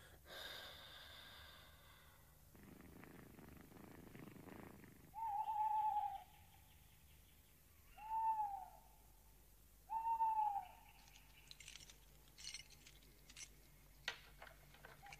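Three owl hoots, each a short held note that slides down at its end, a little over two seconds apart. Before them a cat purrs softly, and a few light ticks follow near the end.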